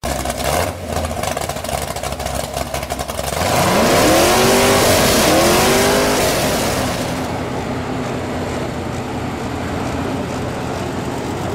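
An engine revving up and back down in sweeping surges, the loudest part, about four to six seconds in. About seven seconds in it gives way to a modified gas pulling truck's engine running steadily at idle.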